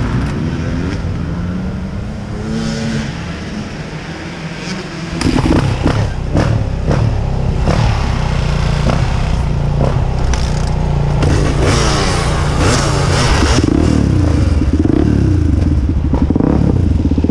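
Honda XR400 dirt bike's air-cooled four-stroke single-cylinder engine under way, running low at first and then opening up about five seconds in, with repeated knocks and clatter from the bike over rough trail. The engine pitch rises and falls near the end.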